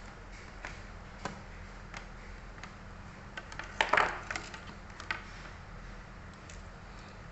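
Small plastic and metal clicks and taps from handling parts inside an opened laptop during a processor swap, with a short cluster of louder clicks and scraping about four seconds in, over a low steady hum.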